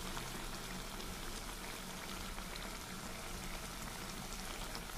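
Chicken chilli gravy simmering in a wok: a steady, soft bubbling with faint scattered pops.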